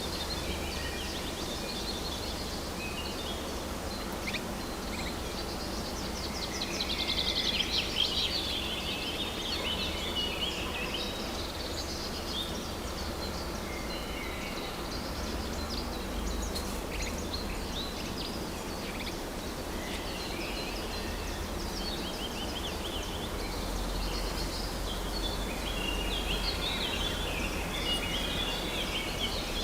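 Woodland birdsong: several birds chirping and trilling over a steady low background rumble, with a louder rapid trill about seven seconds in and busier song near the end.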